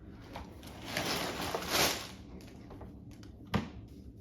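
Lego set packaging being opened: a noisy ripping rasp lasting about a second, then a single sharp click about three and a half seconds in.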